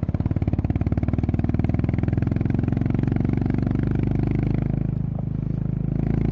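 Honda CB350RS's single-cylinder engine running under way, its exhaust pulsing evenly. It eases off a little about five seconds in, then picks up again near the end.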